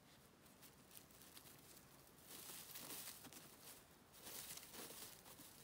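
Faint rustling and crackling of dry redwood needles and forest litter as a cat paws at the ground to cover its urine, louder in two short spells.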